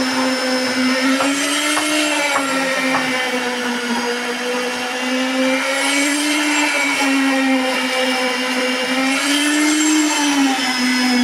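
Poker concrete vibrator running with a steady whine while its vibrating head is worked through freshly poured wet concrete to compact it. The pitch rises briefly twice, about two seconds in and again near the end.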